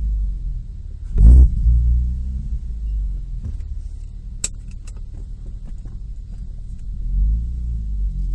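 Nissan Maxima's 3.5-litre VQ V6 idling through an aftermarket exhaust, with a slight misfire at idle. A loud short puff comes about a second in, a few sharp clicks follow near the middle, and the idle note wavers near the end.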